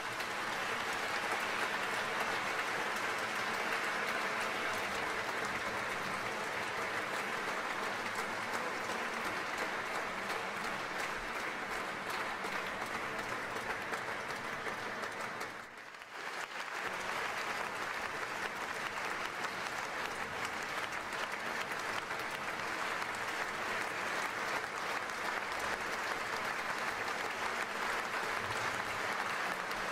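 Audience applauding after a piano performance: dense, steady clapping that drops away briefly about halfway through, then carries on.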